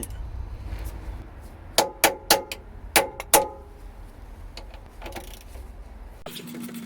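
Metal tools and bolts clinking, with about six sharp metallic clinks in quick succession a couple of seconds in. Near the end a cordless power tool starts running steadily on the second shock-absorber bottom-mount bolt.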